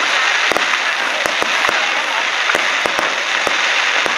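Fireworks display: aerial shells bursting in about ten sharp bangs at irregular intervals over a steady hiss.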